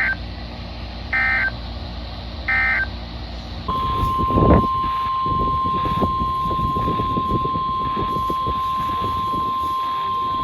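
Three short warbling data bursts of the EAS/SAME digital code, about 1.3 s apart, marking the end of a NOAA Weather Radio alert message. About three and a half seconds in, the steady 1050 Hz NOAA Weather Radio alert tone starts and holds over a noisy rumble, with a brief thump just after it begins.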